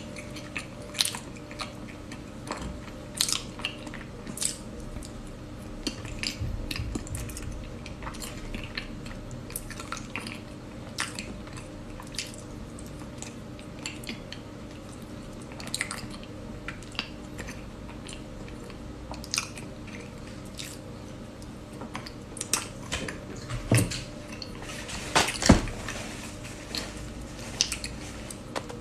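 Close-miked biting and chewing of chocolate-coated dessert squares: irregular small clicks and cracks, with a few louder bites near the end.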